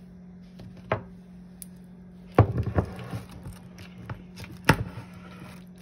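Kitchenware being handled on a countertop: a light knock, then a loud knock followed by a short run of clatters, and another sharp knock near the end. A steady low hum runs underneath.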